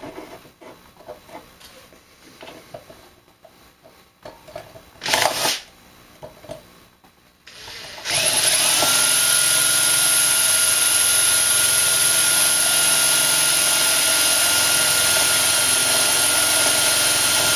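Small handling knocks and clatter, then about eight seconds in a small electric power tool starts up. It comes up to speed with a short rising whine, then runs steadily with a high whine.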